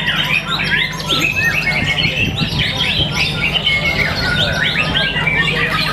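White-rumped shama singing a fast, unbroken stream of varied short chirps and whistles over a steady low hum.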